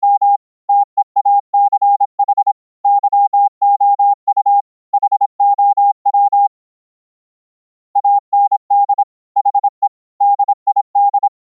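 Morse code (CW) keyed as a single clean tone of about 800 Hz, fast runs of short and long beeps. The sending stops for about a second and a half in the middle, then resumes.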